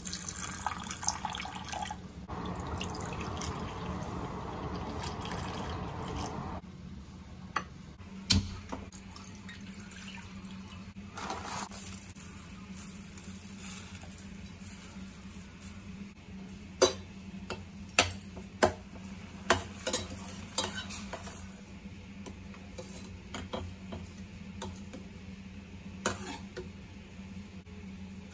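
Water poured into a small glass bowl of soaking sabja seeds, followed by a few more seconds of running water. Then there are several sharp knocks of a utensil against a stainless steel saucepan, most of them in a quick cluster, as china grass (agar agar) strands are worked into the water.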